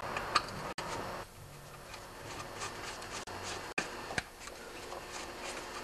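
Phillips screwdriver turning out the screws that hold a lawnmower carburetor to its fuel tank: faint scattered ticks and light scraping of the bit in the screw heads.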